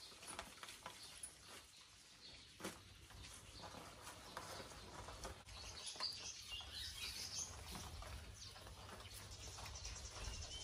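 Quiet rustling and light clicks of garlic scape stalks being handled and tied into bundles by hand, with faint high chirping from about six seconds in.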